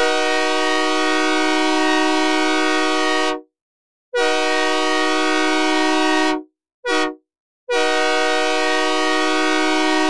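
Synthesized Nathan K3H/K3L three-chime locomotive air horn sounding a steady chord in four blasts: long, long, short, long. This is the standard grade-crossing signal pattern.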